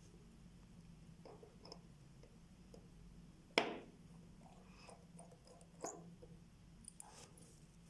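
Small clicks and taps of watchmaker's tools on the parts of a Vostok Amphibian watch, a few light ones early on and two sharper ones about halfway through and two seconds later, over a low steady hum.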